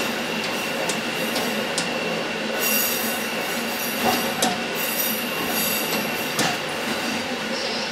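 KiHa 11 diesel railcar running along the track, with a steady rumble, a few sharp clicks of the wheels over rail joints, and the wheel flanges squealing high twice around the middle as it rounds a curve.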